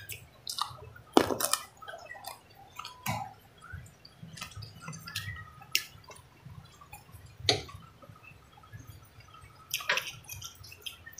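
Close-up eating sounds: a crisp crunching bite of raw cucumber about a second in, then wet chewing and mouth clicks, with a drink from a glass of water near the end.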